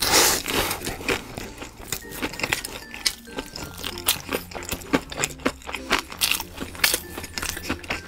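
Close-miked mukbang eating sounds: a loud crunchy bite into crispy fried food at the start, then a run of wet chewing clicks and mouth smacks. Soft background music plays underneath.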